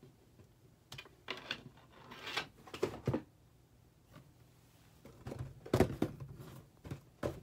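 Handling noises from cardboard trading-card boxes being touched and shifted on a table: scattered light knocks, taps and scrapes, a few at a time, the loudest about six seconds in.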